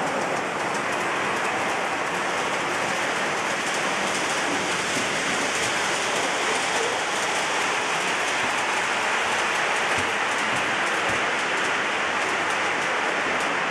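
Model freight train of container wagons rolling across a layout's truss bridge: a steady rush of wheel noise with fine, rapid clicking, over a constant background hiss.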